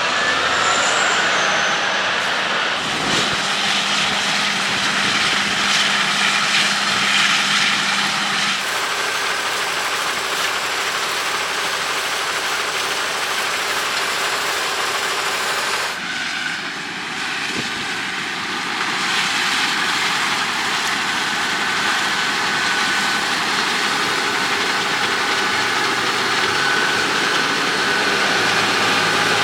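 John Deere X9 1100 combine harvester running while harvesting wheat: a steady, loud mechanical drone of engine and threshing machinery. Its character shifts abruptly twice, about a third of the way in and again about halfway.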